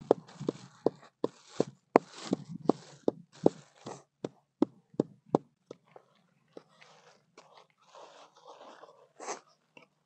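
Wooden pestle pounding salt in a small wooden mortar: a quick run of about fifteen sharp knocks, nearly three a second, that stops after about five and a half seconds. Then softer rustling of a plastic bag, with one louder bump near the end.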